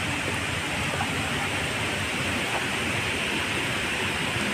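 Steady rush of stream water running over rocks.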